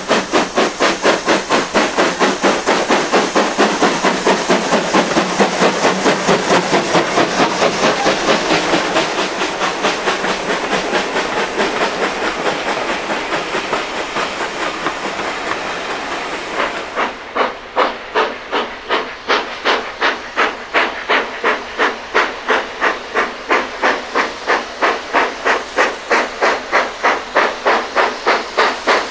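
Steam locomotive chuffing in an even rhythm of about three exhaust beats a second, with steam hissing under it. Midway the beats blur together, and about two-thirds of the way through the sound turns suddenly duller, with the beats again clear and regular.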